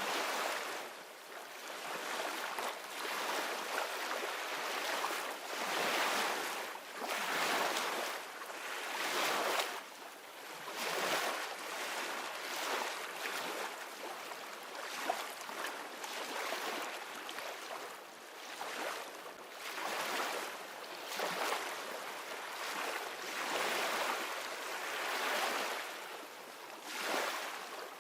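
Ocean waves washing onto a shore, a steady surf hiss that swells and ebbs every two to three seconds.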